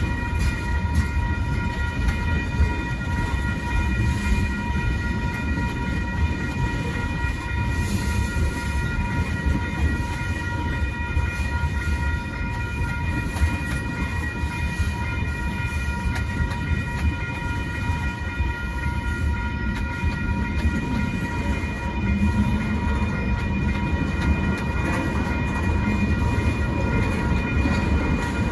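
A freight train's cars rolling through a grade crossing with a steady low rumble. Over it the crossing bell rings without pause, several high tones sounding together.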